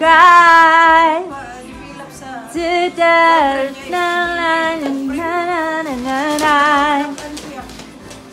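A female voice singing a melody in long held notes with a wavering vibrato, with a short lull about a second in.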